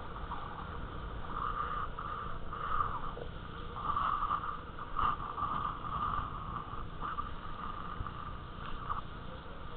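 Water rushing and splashing against a towed Jobe inflatable ride as it is pulled at speed through a motorboat's wake, with wind buffeting the microphone; the noise surges and dips unevenly.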